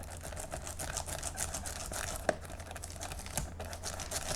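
Plastic wrapping crinkling and rustling as it is handled, in many small irregular crackles over a steady low hum.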